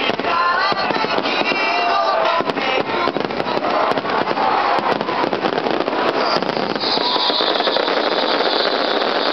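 Fireworks display: a rapid barrage of aerial shells bursting, many overlapping bangs. Music with singing plays along over them for the first couple of seconds, and a steady high hiss joins in about six seconds in.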